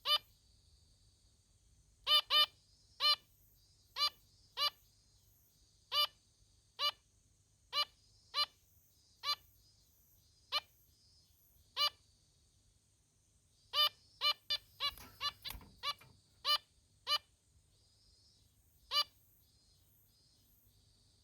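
Female zebra finch giving short nasal "meep" calls, one at a time or in quick pairs, about one a second, with a faster run of several calls a little past the middle and a single call near the end.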